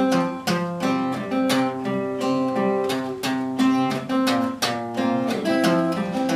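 Acoustic guitar strummed in a steady rhythm, an instrumental passage of a folk song with no singing.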